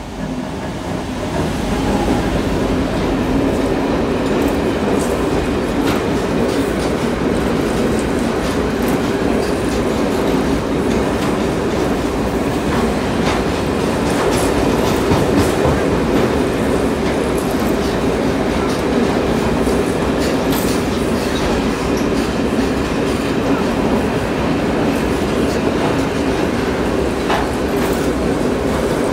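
Freight train of container wagons hauled by a diesel locomotive rolling past close by: a steady rumble of wheels on the rails with repeated clicks as the wheels cross rail joints. The sound swells over the first two seconds as the locomotive passes, then holds steady while the wagons go by.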